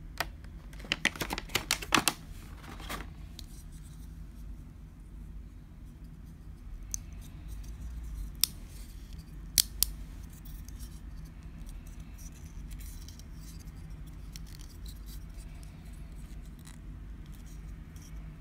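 Hands handling a clear plastic blister tray and blocky plastic toy figures: a quick run of sharp clicks and crackles about a second in, then a few single sharp clicks, two close together near the middle as the articulated figure's legs are moved, over a steady low hum.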